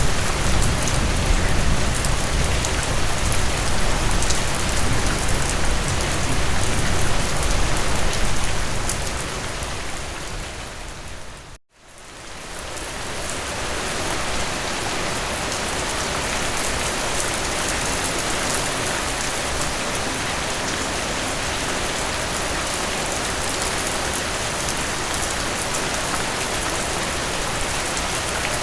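Steady rain falling, with a low rumble under it for the first several seconds. About eleven seconds in, the rain fades out to a moment of silence and fades back in over a couple of seconds, then carries on evenly.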